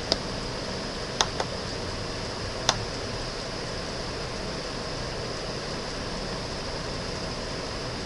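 Computer mouse clicking four times in the first three seconds, two of the clicks close together, over a steady hiss of room and recording noise.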